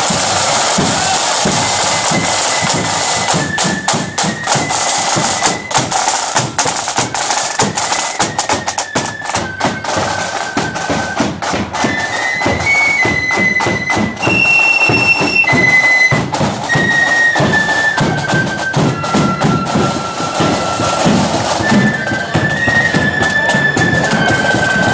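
Blood-and-thunder marching flute band playing a tune: flutes in unison carrying the melody over fast, dense side-drum strokes and rolls.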